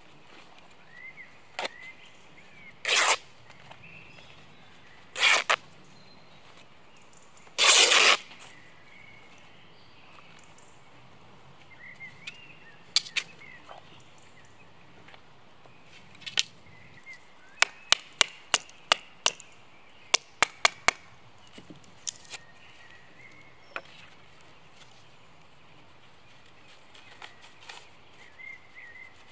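Cloth being ripped by hand, three short noisy tears in the first eight seconds, for wrapping a torch. Later comes a quick run of about a dozen sharp clicks, with faint bird chirps behind.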